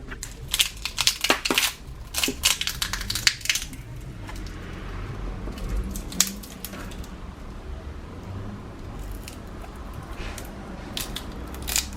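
Small tools and phone parts being handled on a workbench during a smartphone screen replacement: a run of sharp clicks and crinkling, densest in the first few seconds, then scattered clicks.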